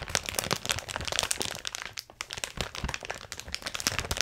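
Clear plastic packaging bag crinkling and crackling as it is squeezed and pulled at by hand, with a brief lull about two seconds in.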